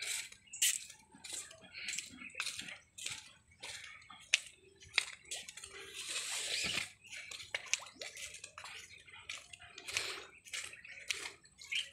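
Small river waves lapping and splashing irregularly against a concrete embankment, in quick uneven slaps with a longer wash about halfway through.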